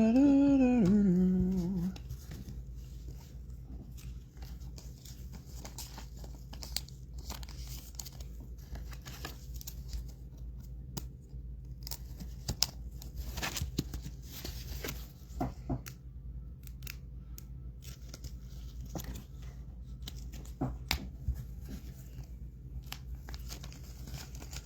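Foil trading-card packs being torn open and their wrappers crinkled, with cards shuffled and handled in between: scattered short rips, rustles and clicks, busiest about halfway through. A short hummed voice sound comes right at the start.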